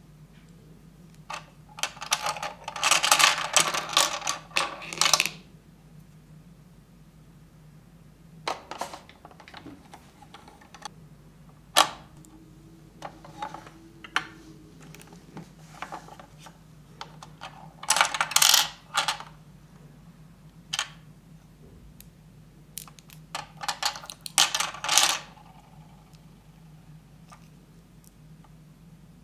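Handling sounds from a plastic toy chocolate-coin making kit (MegaHouse Choco de Coin) worked by hand: foil-wrapped chocolate coins rustled, pressed and lifted out of the plastic mold. There are three longer spells of crinkly rustling, near the start, about two-thirds through and near the end, with a few sharp plastic clicks between them.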